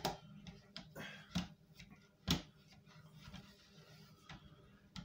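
Light, irregular clicks and knocks of a utensil scraping and tapping against a metal cake tin as a mixture is spread in it, the sharpest knock about two seconds in.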